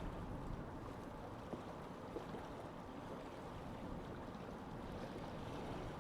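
Lake ambience: a steady, low rushing of wind and water, with a few faint ticks.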